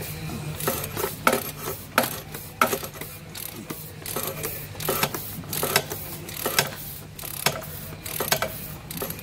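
Socket ratchet on a 36 mm socket clicking as it is swung back and forth, a burst of clicks about every two-thirds of a second. It is loosening a truck engine's oil filter housing cap.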